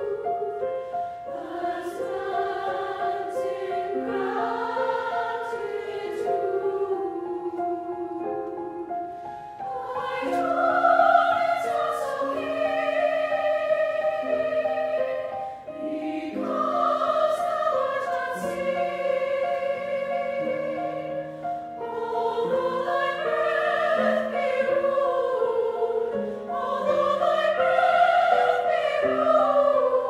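Large mixed choir singing with piano accompaniment, in sustained phrases of about five or six seconds separated by short breaths, swelling louder about ten seconds in and again near the end.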